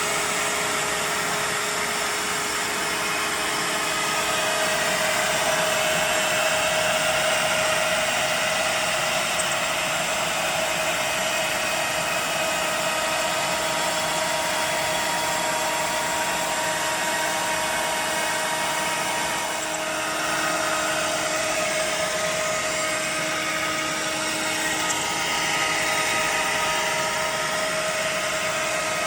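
CNC router running a cutting job, its spindle whining steadily with a few held tones while the bit cuts pocket slots into a melamine-covered shelf board. It is loud throughout, with small swells as the cut goes on.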